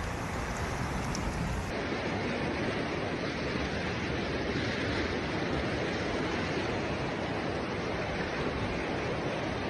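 Steady rushing noise of heavy rain and flowing floodwater.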